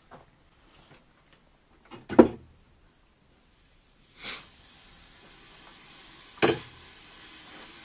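A heating system being started up again after a pipe repair: three sharp knocks, the first the loudest, then from about halfway a steady hiss of water and air rushing into the pipes.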